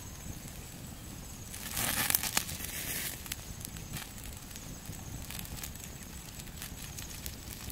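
Open wood fire crackling under a cooking stone, with scattered small pops. About two seconds in, a louder rustling hiss rises for over a second.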